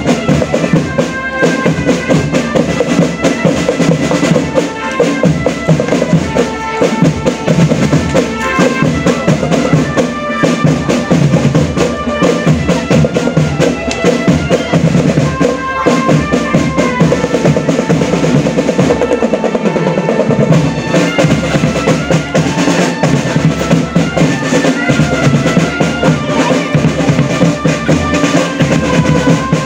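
Marching drum band playing: bass and snare drums beating steadily, with drum rolls, under a melody played on pitched instruments.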